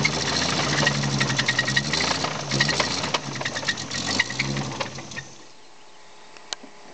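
Toyota 7M-GTE turbocharged inline-six revved a few times, with a rapid knocking running through it that the owner takes for a rod knock; the engine is shut off about five seconds in, followed by a few faint clicks.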